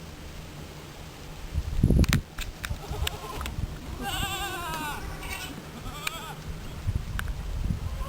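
A goat bleating with a wavering, quavering voice about halfway through, with a couple of shorter bleats around it. A low rumble and a few sharp clicks come about two seconds in.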